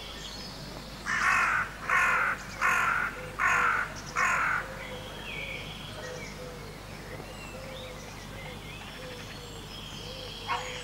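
A crow-like bird cawing five times in a row, about one caw a second, then falling silent. Faint chirps of small birds sound in the background.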